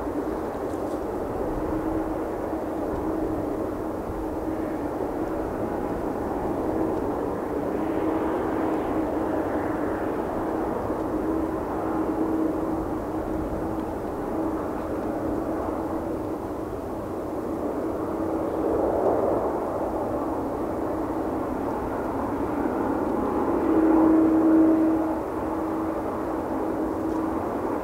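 Boeing 787-8 Dreamliner's jet engines running as the airliner touches down and rolls out along the runway. The engine noise is steady, with a low hum running through it, and swells in loudness about two-thirds of the way in and again near the end.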